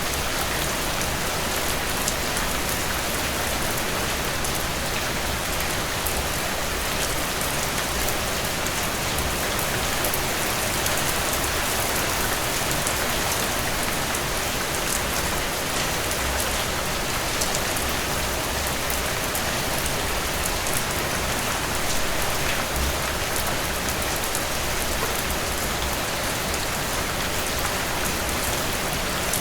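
Steady heavy rain falling on a surface, an even hiss with fine drop patter and no thunder.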